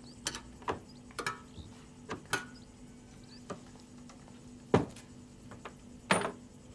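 Scattered sharp clicks and light knocks of small hard objects on a wooden counter, with two louder knocks in the second half, over a faint steady hum.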